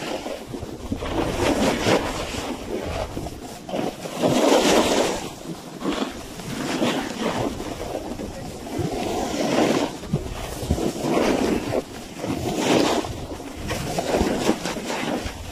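A snowboard sliding and scraping over snow, with wind on the microphone. The noise swells and fades every second or two.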